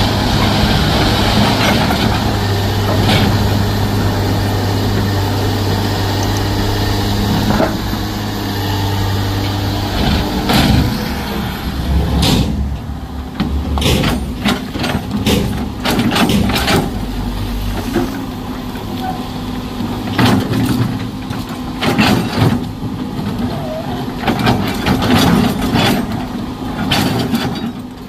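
Heavy truck's diesel engine running, a steady hum for the first ten seconds or so, after which the engine note continues under a string of short, sharp knocks and hissing bursts at irregular intervals.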